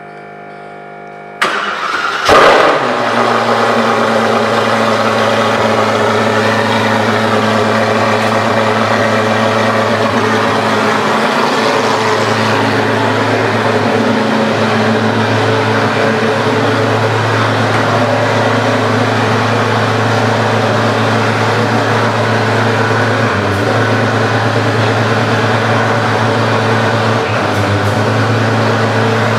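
De Tomaso P72's supercharged V8 starting about a second and a half in, flaring up briefly, then settling into a steady idle.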